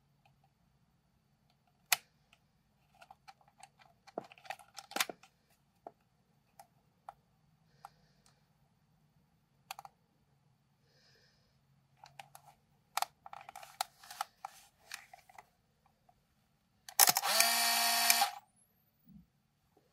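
Fuji DL-95 Super Panorama 35mm compact camera being handled, with a string of small plastic clicks from its controls. About 17 seconds in, its built-in motor whirs for a little over a second.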